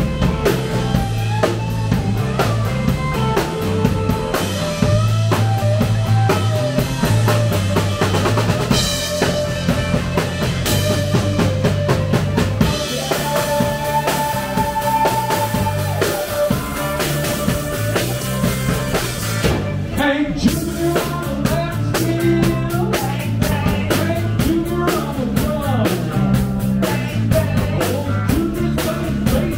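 A live rock band playing: electric guitars, electric bass and a drum kit, with the drums prominent and a steady, driving beat.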